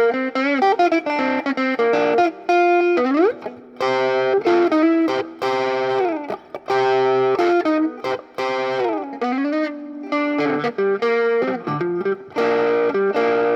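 Electric guitar played through a Bugera V5 tube amp in 1-watt mode: lead lines with several string bends, mixed with chords.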